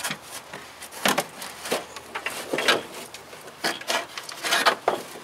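Heater box on an '82 Chevy pickup being wrenched and wiggled loose from the firewall: irregular knocks and scrapes of the box shifting against the sheet metal, about a dozen sharp strokes.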